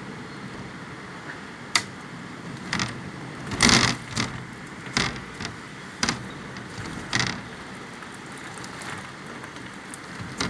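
Steady rain and wind noise in a storm, broken by a series of sharp knocks and cracks, the loudest about three and a half seconds in.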